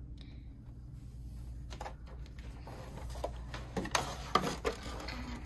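Clear plastic packaging insert and booster packs being handled, clicking and crinkling: a few scattered clicks, then a busier flurry of rattling about four seconds in.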